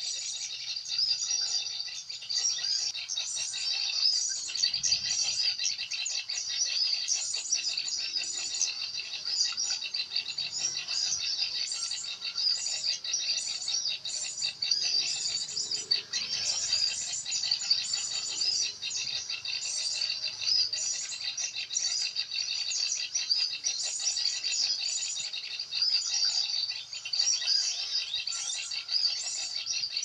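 Dense, continuous high-pitched chirping of small songbirds, many quick calls overlapping and repeating throughout.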